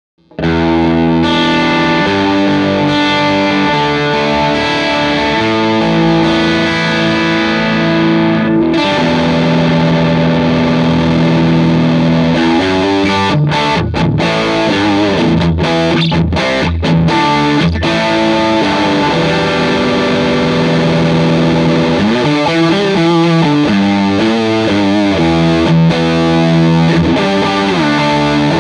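Overdriven electric guitar: a Fender Telecaster through a British-style overdrive pedal into a Vox AC30 amp, with a little delay. It plays long ringing chords, a choppy stop-start riff in the middle, then bent and wavering notes near the end.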